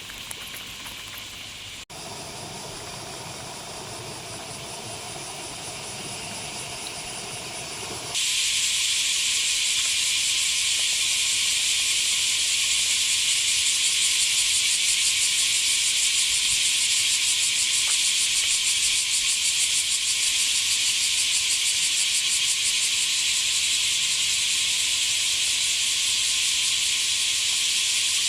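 Bear cicadas (kumazemi) in a loud, steady, fast-pulsing chorus. It is quieter for the first several seconds and jumps much louder about eight seconds in.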